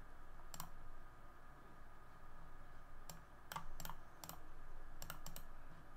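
Computer mouse clicking: one click about half a second in, then a run of seven more from about three seconds in, several in quick succession near the end.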